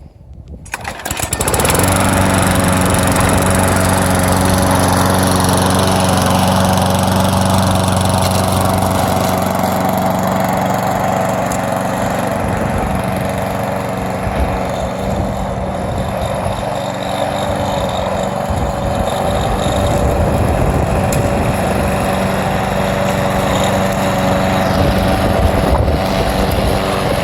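A freshly serviced push mower's small four-stroke engine starts up within the first two seconds and then runs steadily: it fires up after an oil change, carburetor repair and tune-up.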